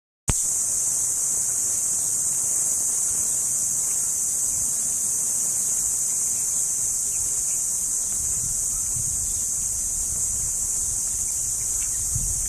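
Dense, continuous chorus of shrilling insects, one steady high-pitched band that starts abruptly just after the beginning and holds without a break. A faint low rumble joins it in the second half.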